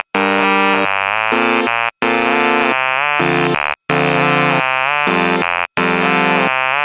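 Background electronic music: a buzzy synthesizer plays quick stepping notes in a repeating phrase that breaks off for a moment about every two seconds.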